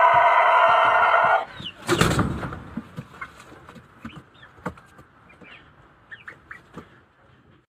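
Rooster finishing a long crow, which ends about a second and a half in. A short loud flurry of wing-flapping follows, then a scatter of soft clucks and chirps that fade away.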